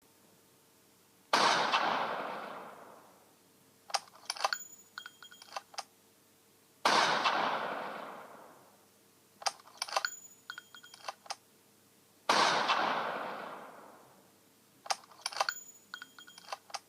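Sniper rifle sound effect: three single shots about five and a half seconds apart, each with a long fading tail. A couple of seconds after each shot comes a quick run of metallic clicks and clinks.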